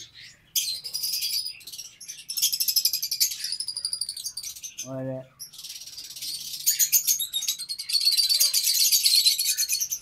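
A flock of lovebirds chattering in high-pitched, rapid chirps. The chirping comes in bursts, with short breaks about two and about five seconds in.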